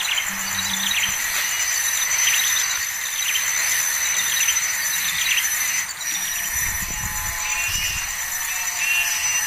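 Insects trilling steadily, a continuous high pulsing buzz, with repeated short high chirps over it.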